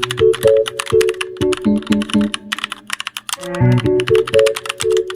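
A meme sound effect: a short tune of brief notes, starting over about halfway through, laid over rapid clicking like keyboard typing.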